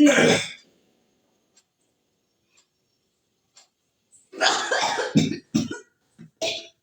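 A person coughing several times in quick succession, harsh coughs set off by sniffing pepper that irritates the nose and throat. The coughing starts about four seconds in, after a stretch where a clock ticks faintly about once a second.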